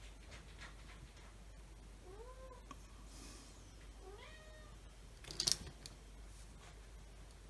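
A cat meowing twice, short rising-and-falling calls, with a sharp click a little after the second meow.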